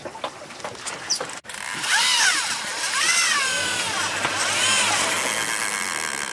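Large conventional trolling reel being cranked to retrieve line, its gears giving a whine that rises and falls in pitch with each burst of cranking, over wind and water noise. A few sharp clicks come in the first second or so.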